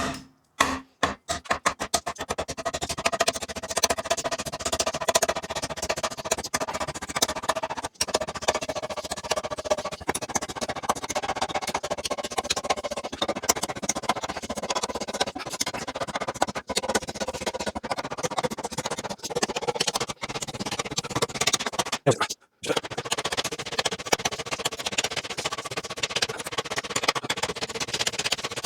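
Background music with a rapid percussive beat.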